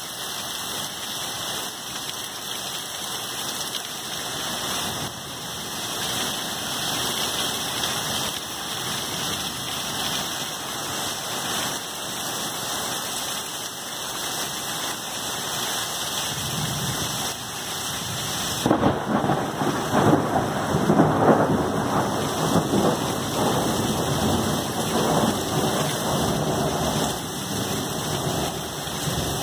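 Heavy thunderstorm downpour, rain pouring steadily. A low rumble of thunder builds about halfway through, then a loud thunderclap breaks about two-thirds of the way in and rumbles on for several seconds before easing.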